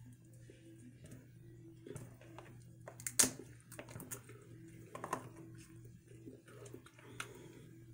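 Crab leg shells being cracked and picked apart by hand: scattered small crackles and clicks, with one sharp snap about three seconds in.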